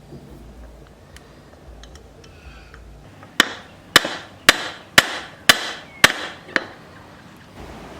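Seven hammer blows, evenly paced about half a second apart, each with a short ring, the last one lighter.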